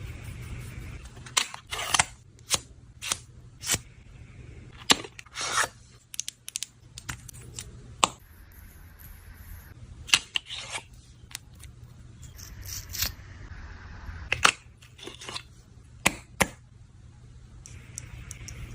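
Makeup packaging being opened and handled by hand: a string of sharp, irregular clicks, snaps and rustles with some tearing, over a low steady hum.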